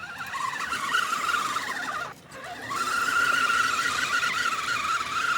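Radio-controlled rock crawler's electric motor and gears whining under throttle. The whine cuts out for about half a second a couple of seconds in, then comes back and holds steady.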